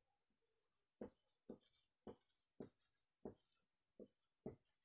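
Felt-tip marker writing on a whiteboard: about seven short, faint strokes, beginning about a second in, as letters are drawn.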